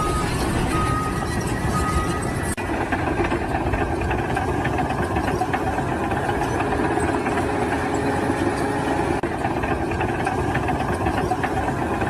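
Heavy vehicle engine running steadily, with a reversing alarm beeping at a steady pace for the first two seconds; about two and a half seconds in the sound cuts to another steady engine rumble.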